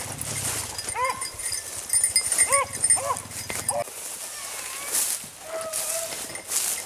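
Beagles barking: several short, arched yelps in the first few seconds, then longer drawn-out bays near the end.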